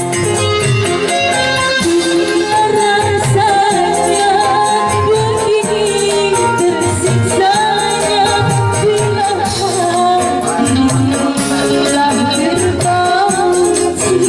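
Live band music: a woman singing over electric guitar, keyboard and kendang hand drums, whose low strokes drop in pitch, with a tambourine jingling steadily. The singing comes in a couple of seconds in.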